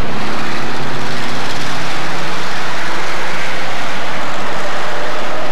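A pack of street stock race cars running at racing speed around a short oval track, their engines loud and steady, with the engine pitch shifting a little as the cars go by.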